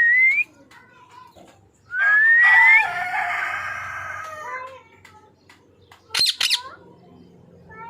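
Pet parrot calling: a brief rising whistle, then another rising whistle about two seconds in that runs straight into a long loud call with many overtones, and near the end two short shrill screeches in quick succession.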